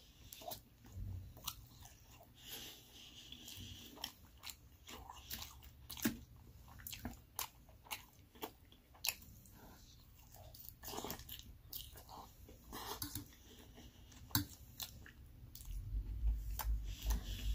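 Close-miked chewing of a mouthful of raw baby spinach salad with ranch: wet crunching with many short, crisp bites. Near the end a lower rubbing sound as a napkin wipes the mouth.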